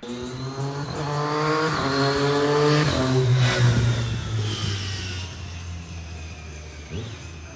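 Triumph Daytona 675R inline three-cylinder engine revving up. Its pitch rises for about three seconds to its loudest point, then falls and fades away.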